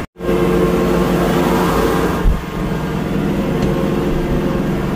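Kubota tractor engine running steadily, heard from inside the cab, with a short low thump about two seconds in.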